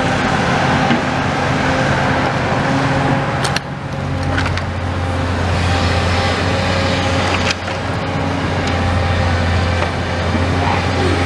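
Tracked demolition excavator's diesel engine running steadily, a loud hum whose low note grows stronger about four seconds in, with a few short knocks.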